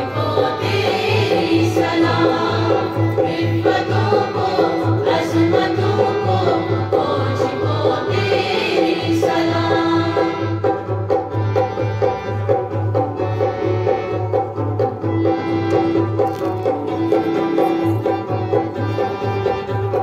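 A college anthem (taraana) sung by a group of voices over instrumental backing with a steady pulsing bass beat. About halfway through, the singing gives way to the instruments alone.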